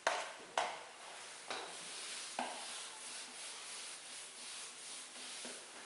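Whiteboard duster rubbing marker off a whiteboard in continuous wiping strokes, with a few sharper taps as the duster meets the board.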